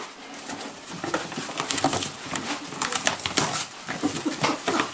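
A dog ripping and chewing at a cardboard box, with a dense run of irregular tearing, crackling and rustling of cardboard and paper.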